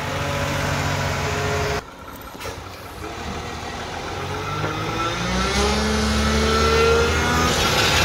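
Mack front-loader garbage truck's diesel engine idling steadily. It cuts off abruptly about two seconds in, and then the truck is heard coming closer and accelerating, its engine pitch rising and growing louder.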